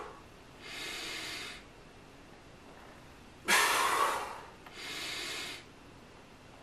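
A man breathing hard through a set of bent-over dumbbell Y raises. There is a quieter breath in about a second in, then a loud, forceful breath out at about three and a half seconds as the arms come up, followed at once by another quieter breath in.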